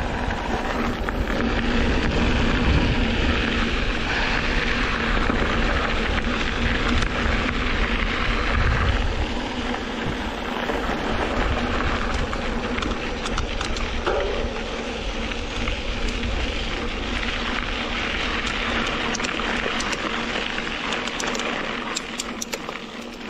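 Wind buffeting the microphone and mountain bike tyres rolling over a dirt road: a steady rushing noise with a deep rumble and a few sharp clicks near the end.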